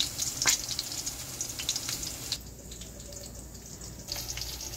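Salmon fillets frying in hot oil in a pan: a steady crackling sizzle with one sharp pop about half a second in. The sizzle drops away for about a second and a half in the middle, then comes back near the end.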